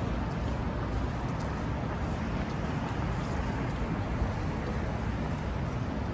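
Steady street traffic noise of a city, a constant wash of vehicle sound with no single event standing out.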